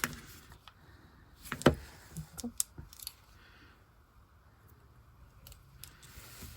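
A few small clicks and taps of objects being handled on a tabletop, the loudest about one and a half seconds in and a quick cluster just after.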